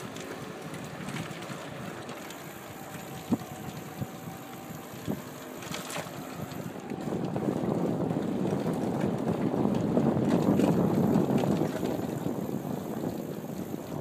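Wind rushing over the microphone of a camera carried on a moving bicycle, with a few short knocks from the bike; the rushing grows louder about halfway through and eases near the end.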